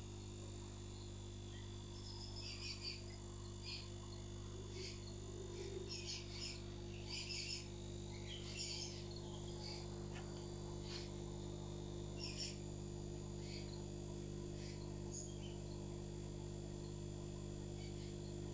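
Steady low hum of aquarium equipment, with a scatter of short, high chirps between about two and fifteen seconds in.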